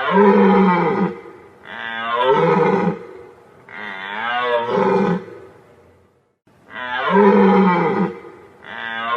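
Deer calling: a series of loud, long, drawn-out calls, each about a second and a half, with short pauses between. Most slide down in pitch, and the one in the middle wavers up and down.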